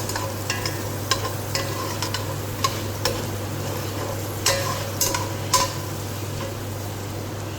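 Butter and garlic sizzling in a pan with chicken while a utensil stirs, clacking and scraping against the pan at irregular moments, over a steady low hum.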